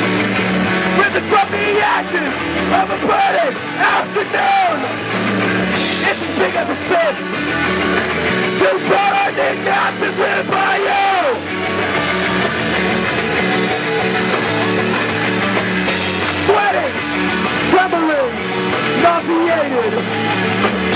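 Live rock band playing loudly: drums and cymbals, electric guitar and a singer's voice through the microphone.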